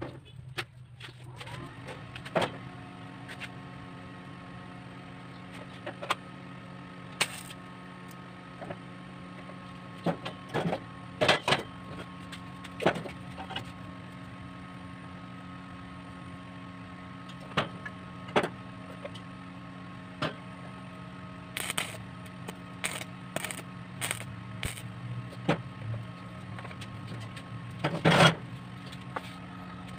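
Square steel tubing knocking and clinking against a steel worktable and frame as the pieces are set in place. The knocks are scattered and sharp, with a quick run of them a little past the two-thirds mark and the loudest near the end. They sit over a steady hum with several held tones.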